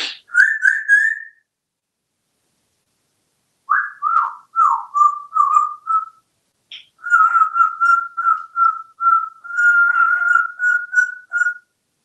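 African grey parrot whistling: three quick rising notes, then after a pause a run of short falling notes, and later a longer run of short even notes at about three a second.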